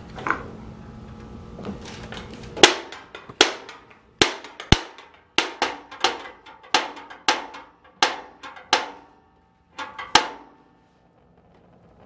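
Piezo push-button igniter on a Master 18,000 BTU propane cabinet heater clicking over and over while the pilot is lit: a dozen or so sharp snaps about every half second, then a short pause before a last pair.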